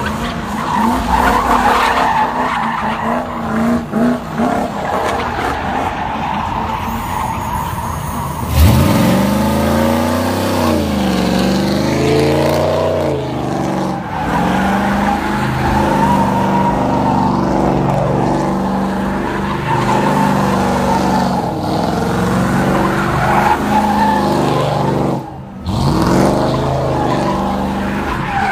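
A car doing donuts: tires squealing steadily while the engine revs hard. About a third of the way in the engine's pitch rises sharply and then swings up and down, and near the end it drops briefly and climbs steeply again.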